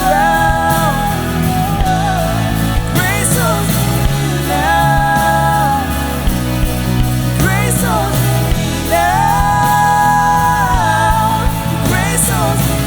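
Worship song with singing over a full band: sustained sung phrases that glide up into long held notes, with steady bass and drums underneath.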